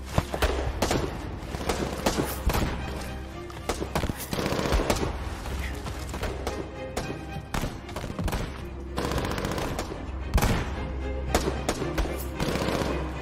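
Gunfire in a battle scene: irregular rifle and machine-gun shots, now scattered, now in quick runs, over a steady low music score.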